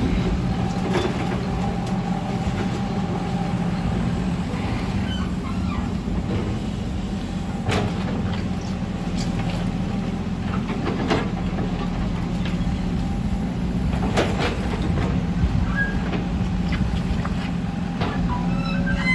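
Old Cat tracked excavator's diesel engine running steadily under load while it digs and swings, with a few sharp knocks about 8, 11 and 14 seconds in.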